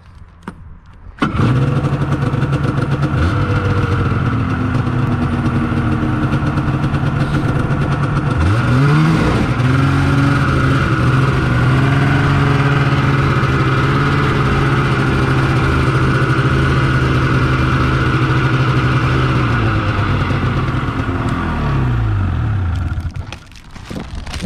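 Yamaha snowmobile engine started with the key about a second in, briefly revved up near the middle, then running steadily before winding down and shutting off near the end.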